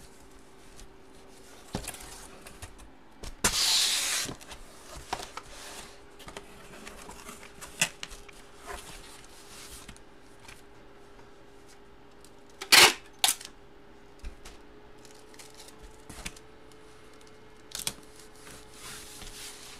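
Hands handling a shrink-wrapped cardboard box and photo packaging: scattered taps and clicks, a rustle about four seconds in, and a sharp double knock about halfway through, over a faint steady hum.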